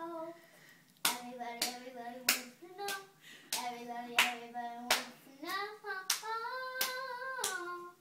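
A young girl singing a tune in a high voice while clapping her hands to a steady beat, about one and a half claps a second; the singing and clapping start about a second in after a short pause.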